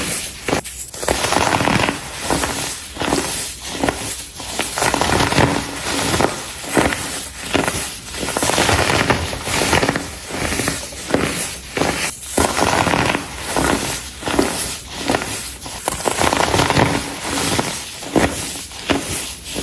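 Crunchy blocks of dried baking soda being crushed: repeated crackling crunches, each a second or so long, with short pauses between them.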